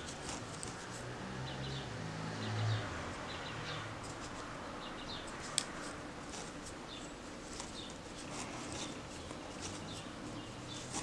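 Faint scratching and light ticks of a crochet hook pulling cotton yarn through stitches, with one sharper click about halfway through. A faint low hum swells briefly about two seconds in.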